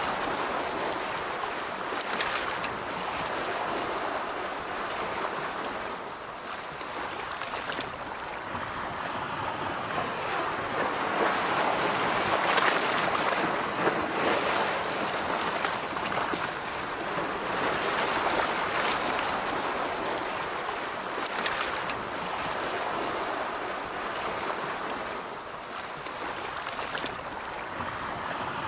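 Ocean surf washing onto a beach, a steady rush that swells and eases in slow surges every several seconds.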